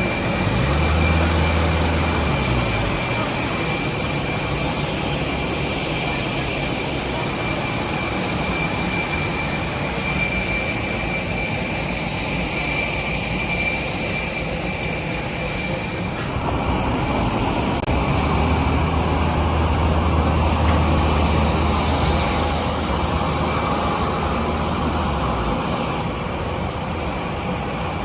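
Airbus A321 jet engines heard from inside the cabin: a steady rush with a steady high whine over it, and a low hum that comes and goes.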